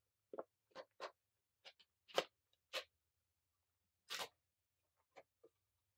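Bubbles of a silicone simple dimple fidget toy being pressed in one after another, each giving a short faint pop, about nine at an uneven pace.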